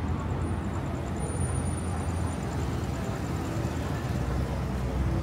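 Outdoor urban street ambience: a steady low rumble with a faint, fast, even high ticking running through it.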